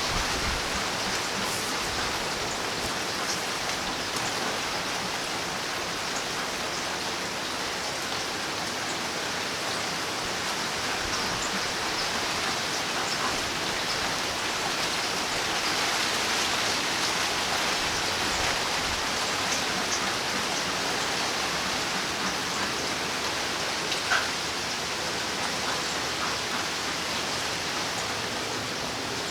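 Steady rain falling, an even hiss with scattered individual drops ticking, one a little louder near the end.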